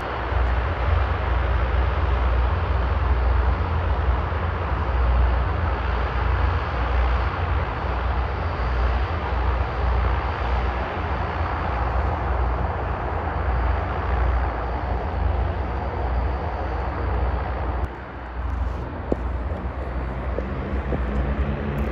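Antonov An-12BK's four Ivchenko AI-20 turboprop engines running, a steady deep drone with a strong low rumble. The level dips briefly a few seconds before the end.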